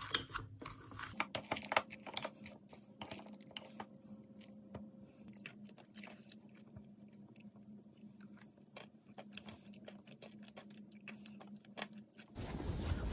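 A metal spoon stirring thick Greek yogurt with banana and granola in a glass mug: irregular small clicks and scrapes against the glass, with crunches and soft wet squishes. Near the end a louder, steady rushing noise takes over.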